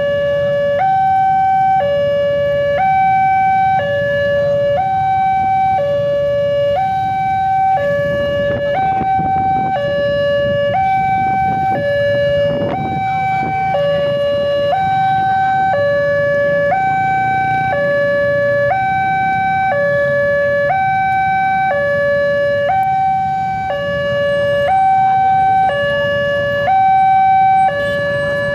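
Railway level-crossing warning alarm sounding from the loudspeaker horn on the crossing signal post: an electronic two-tone alarm, switching between a lower and a higher tone about once a second, the signal that a train is approaching. Road traffic rumbles underneath.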